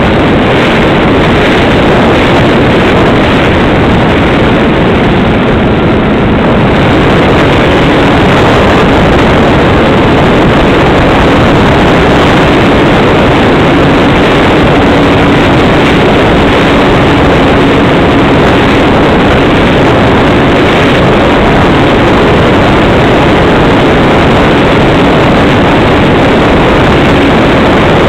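Motor and spinning propeller of a radio-controlled model airplane in flight, heard loud and steady from a camera mounted on the airframe, mixed with rushing wind on the microphone. A faint hum in the noise steps up slightly in pitch about seven seconds in.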